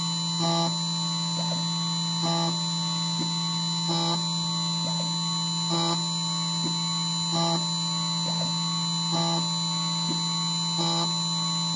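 Xhorse Condor Mini Plus II key cutting machine engraving a key blank: a steady motor hum and whine, with a short swell in the sound about every 1.7 seconds as the cutter moves across the blank.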